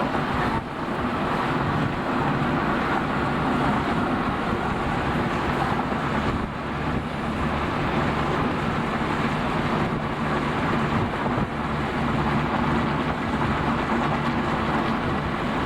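Steady road and engine noise inside a moving car, picked up by a camcorder's built-in microphone.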